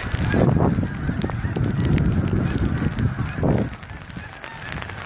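Geese honking, under a loud low rumble of strong wind buffeting the phone's microphone that eases about three-quarters of the way through; raindrops tick throughout.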